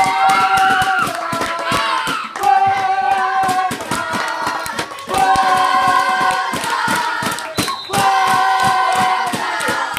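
A group of voices chanting a sung cheer over fast, continuous hand-clapping, the notes held for about a second at a time.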